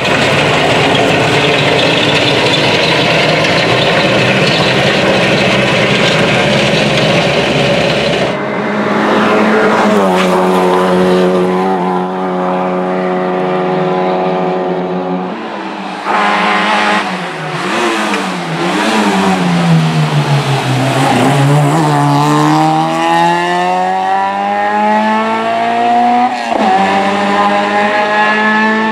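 Rally car engines at full throttle, in several cuts. First a car passes close, loud, with the engine fully open. Then an engine holds steady high revs, drops in pitch as the car slows for a hairpin, and climbs again as it accelerates away through the gears, with a gear change near the end.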